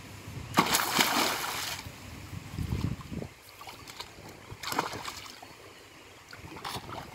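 Pond water splashing as a large netted fish thrashes in a man's grip. A loud splash comes about half a second in and lasts about a second, then a dull thump near three seconds, then shorter splashes near five and seven seconds.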